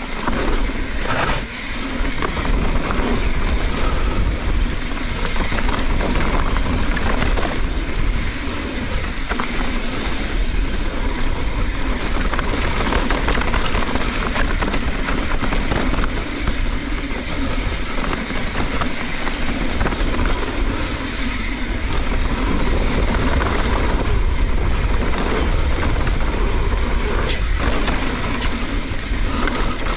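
Mountain bike descending a dirt jump trail: wind rushing over the action camera's microphone and tyres rolling on dirt, with occasional knocks and rattles from the bike.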